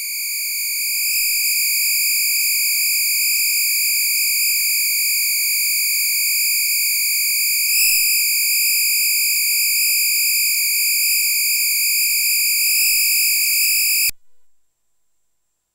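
Instruō SCÍON module's raw biofeedback output played as audio: a high-pitched buzzy pulse-wave tone set by the electric signal from sensor pads on a hand. It holds nearly steady, bends up briefly about eight seconds in, and cuts off suddenly near the end.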